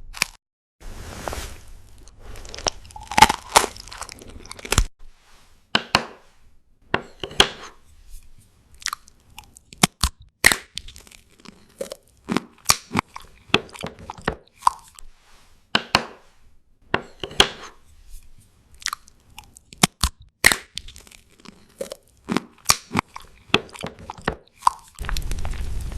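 Close-up eating sounds: loud, irregular crunching bites and chewing of crisp food, one sharp crunch after another. About a second before the end a steady hissing noise starts.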